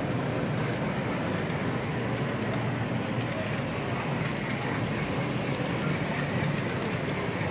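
Steady hubbub of a busy exhibition hall, indistinct voices over a low even hum, mixed with the running of HO-scale model trains on the layout and faint scattered ticks.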